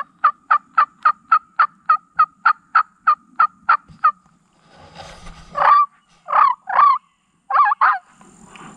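Turkey yelps: a run of about fifteen evenly spaced yelps, nearly four a second, then a few louder, wavering yelps between about five and eight seconds in.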